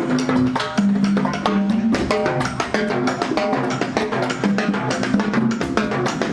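Music with drums and percussion playing a busy, even rhythm over held pitched notes.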